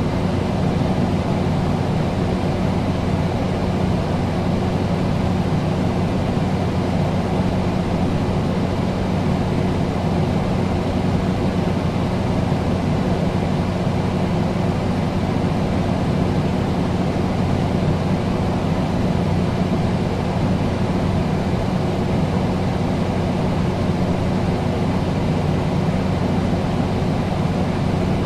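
Air conditioner running steadily: an even rush of air over a constant low hum, with no change in level.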